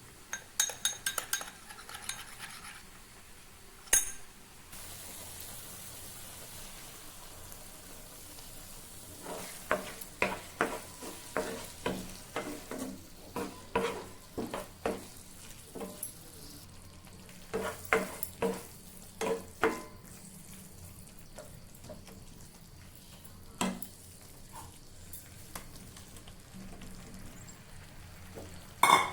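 Food sizzling in hot oil in a pan while a spatula stirs it, knocking and scraping against the pan. The sizzle starts about five seconds in, right after a sharp clink, and the spatula strikes come thickest in the middle. A few quick clinks of utensils come at the start.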